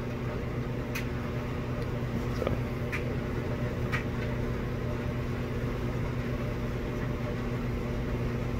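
Steady low mechanical hum, with a few faint short clicks about one, two and a half, three and four seconds in.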